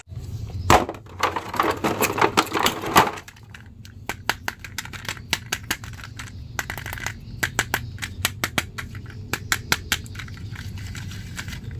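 Hard plastic action figures handled over a clear plastic bag: crinkling of the bag and clattering plastic clicks, dense for the first three seconds, then scattered clicks over a low steady hum.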